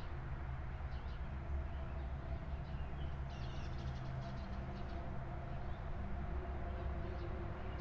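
Outdoor park ambience: a steady low rumble with a faint hum, and a few faint bird chirps about three to four seconds in.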